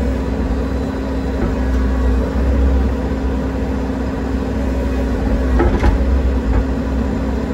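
Compact excavator's diesel engine running steadily, heard from inside the operator's cab, with a constant low hum. A single brief knock about six seconds in.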